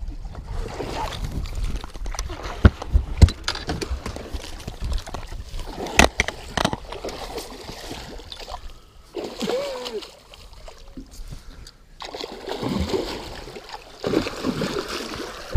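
A muskellunge striking on a figure-eight beside the boat and thrashing at the surface, with water splashing, a few sharp knocks and a man's excited shouts of "ooh".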